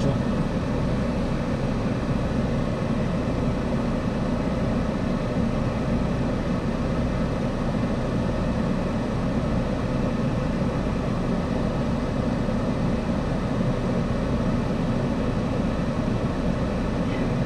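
Car engine idling steadily while stopped, a constant low rumble with an even hiss over it.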